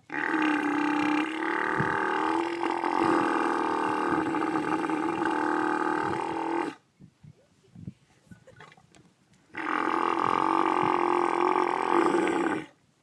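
Dromedary camel belching: two long, loud, steady-pitched calls, the first lasting about seven seconds and the second about three seconds after a short pause.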